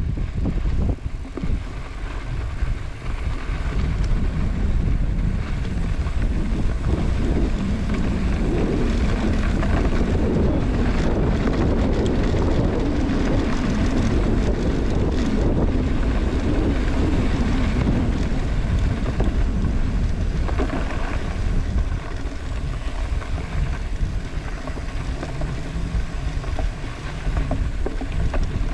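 Wind buffeting the microphone of a moving bike, with a steady low rumble of travel underneath.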